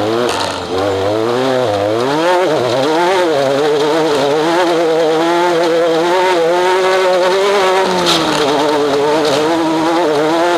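Off-road race vehicle's engine heard from on board under hard running. In the first few seconds it revs up and drops back several times, then holds a fairly steady, wavering pitch. A dip a little after the middle is followed by another climb near the end.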